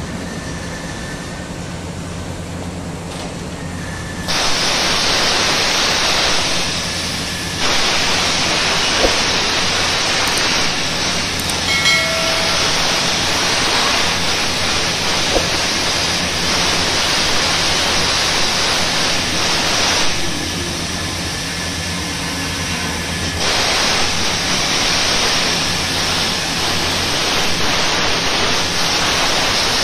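Plasma cutter cutting steel plate: a loud, steady hiss of the arc and compressed air starts about four seconds in, eases off for a few seconds about two-thirds of the way through, then carries on. A steady low hum runs under it throughout.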